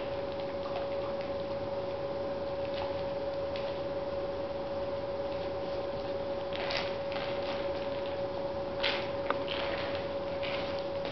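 A steady hum over a noisy background, with a few short soft knocks and rustles about two-thirds of the way in and near the end as a dog noses a plastic treat-dispensing ball across a hardwood floor.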